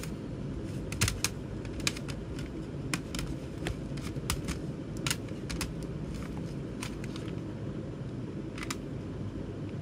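Plastic CD jewel cases clicking and clacking against one another as they are handled and restacked: irregular sharp clicks, thinning out after about six seconds, over a steady low background hum.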